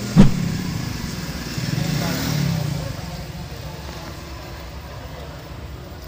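A sharp knock just after the start, then the low engine rumble of a passing motor vehicle that swells about two seconds in and fades into steady street background noise.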